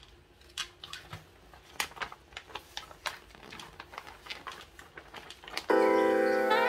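Gift-wrapping paper crinkling and rustling in quick, sharp crackles as it is folded around a soft present. About a second before the end, background piano music starts and is louder than the paper.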